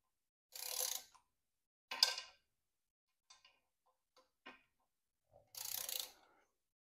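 Quarter-inch-drive torque wrench with an extension ratcheting in three short runs of rapid clicks, with a few faint ticks in between, as the propeller hub bolts are snugged up.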